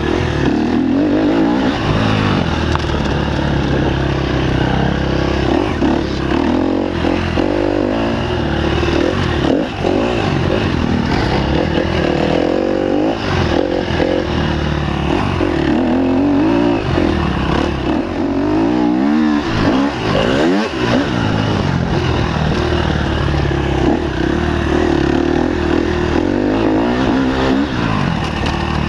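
Enduro dirt bike engine revving up and falling back again and again as the bike is ridden hard over a dirt track, heard from a camera mounted on the bike.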